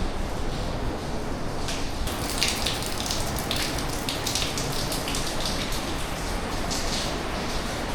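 Aare river rushing steadily through the narrow rock gorge, with irregular spattering of dripping or splashing water joining in from about two seconds in.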